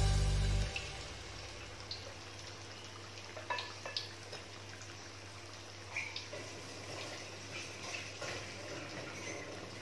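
Battered banana fritters deep-frying in hot oil in a wok: a steady soft sizzle with scattered pops and crackles. Background music cuts off under a second in.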